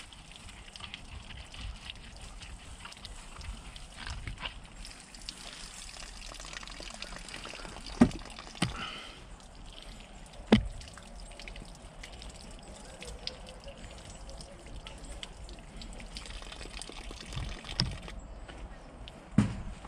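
Water trickling steadily from the spigot of a collapsible plastic water jug onto hands, with two sharp knocks partway through. The flow stops near the end.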